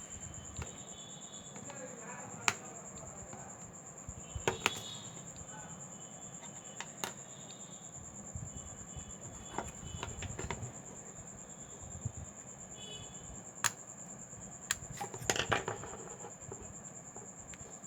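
Scattered sharp clicks and taps of small tools on a smartphone as its display is worked loose, with a cluster of quick clicks near the end, over a steady high-pitched whine.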